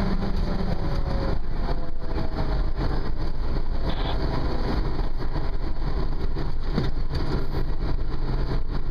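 Engine of a 1985 Pierce Arrow fire engine running steadily under way, with road noise, heard from inside the cab.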